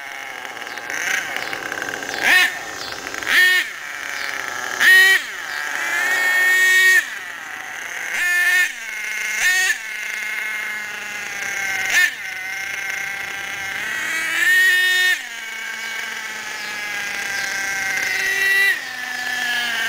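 HPI Savage X RC monster truck's F4.6 nitro engine, a small two-stroke, being broken in: it revs in repeated short throttle bursts, about ten of them, with a couple of longer held runs, and falls back to a lower buzzing idle between them.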